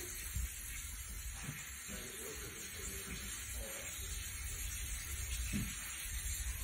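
Bathroom sink tap running, a steady hiss of water.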